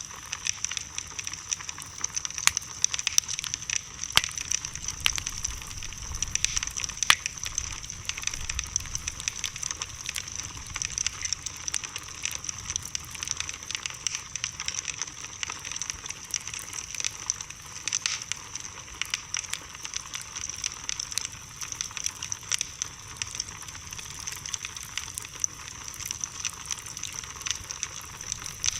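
Wood bonfire crackling, with many irregular sharp pops and snaps over a steady high hiss.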